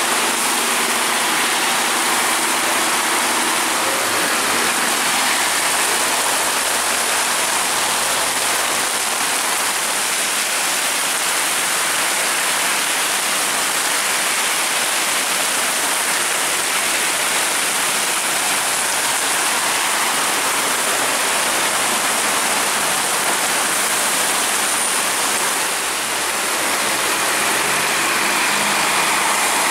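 Heavy tropical downpour hissing steadily on the road, with city buses driving past through standing water, their engines and tyre spray under the rain.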